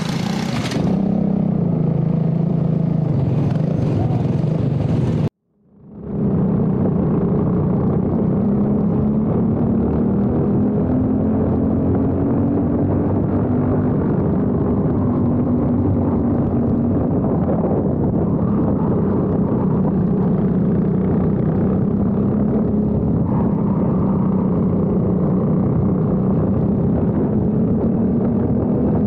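Briggs & Stratton four-stroke kart engine running under throttle, heard onboard, its pitch rising and falling gently with speed. The sound cuts out briefly about five seconds in and then comes back.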